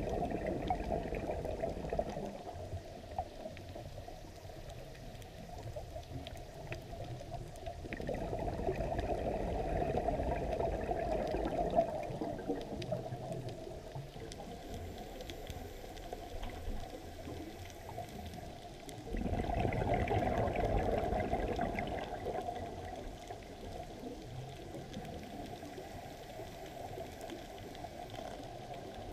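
A scuba diver's breathing heard underwater through the camera housing: exhaled bubbles from the regulator rush out in stretches of a few seconds, three times, roughly every ten seconds, with a quieter steady water noise between.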